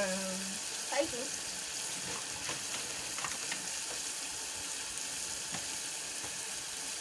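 A pot of thick rice stew sizzling steadily on the stove, with a few faint knocks from the pot or utensil.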